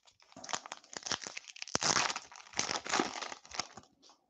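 Wrapper of a 2021 Topps Series 2 baseball card pack being torn open and crinkled by hand, with a dense crackle that swells twice before dying away near the end.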